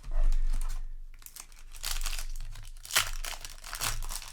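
Crinkling and rustling of a foil booster pack wrapper and trading cards being handled, with a loud bump at the start and a sharp click about three seconds in.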